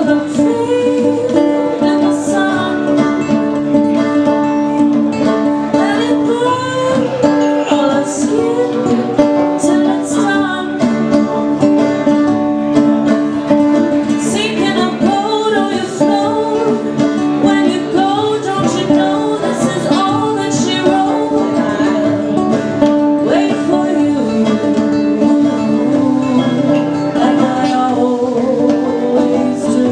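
Live acoustic folk song: a woman singing, accompanied by a strummed nylon-string acoustic guitar and a picked banjo.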